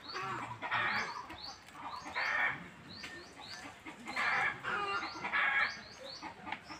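Chickens clucking in short calls every second or so, over a continual run of thin, high chirps.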